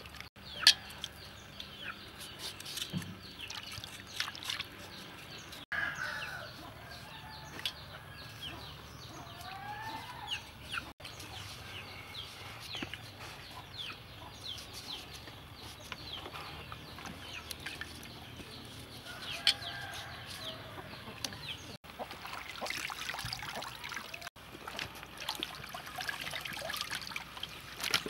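Hand peelers scraping the skins off green bananas, many short quick scrapes and clicks, with chickens clucking in the background.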